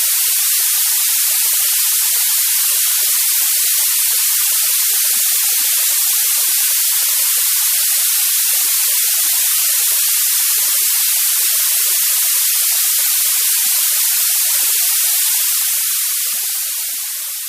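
Steady white noise: an even, high-pitched hiss with no tones or rhythm, which begins to fade out near the end.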